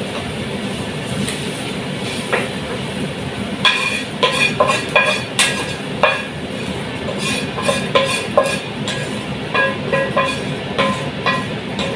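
Wooden spatula knocking and scraping sautéed chicken out of a metal frying pan into a soup pot: from about four seconds in, a run of sharp knocks, each leaving a short metallic ring from the pan, over a steady rumbling background.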